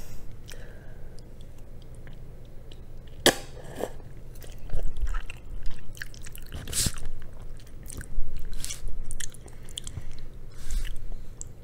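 A person chewing mouthfuls of black bean noodles (jajangmyeon), with scattered short clicks as wooden chopsticks dig through the plastic takeout bowl.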